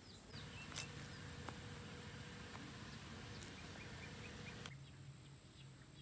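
Quiet outdoor ambience with faint bird chirps, including a short run of small high chirps around the middle, and a soft tap about a second in. The background hiss changes abruptly near the end.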